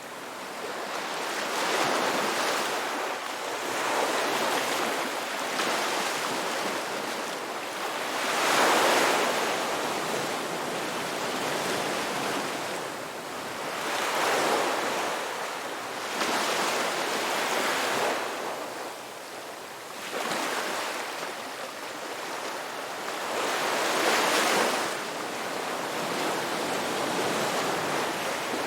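Ocean waves surging and washing, a steady rush that swells and fades every few seconds, with the strongest surges about nine seconds in and again near twenty-four seconds.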